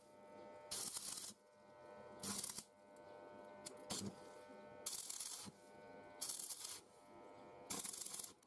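Stick (arc) welding with a coated electrode: the arc crackles and sizzles in about six short bursts of roughly half a second each, with a steady electric hum in between.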